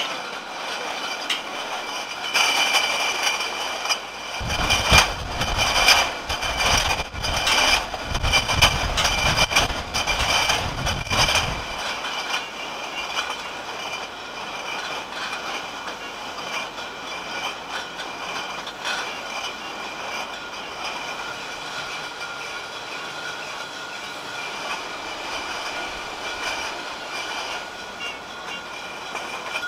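Wine bottling line running: machinery with a steady whine, and glass bottles rattling and clattering through the conveyors and filler. The clatter is heaviest and deepest for the first third, then the line settles to a steadier run.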